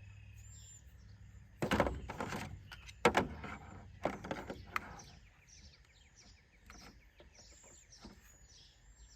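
Knocks and clicks from handling the plastic jump-starter battery pack and air compressor unit as the pack is fitted to the compressor: a cluster about two seconds in, the loudest single knock about three seconds in, and two more around four and five seconds. Birds chirp faintly in the background in the second half.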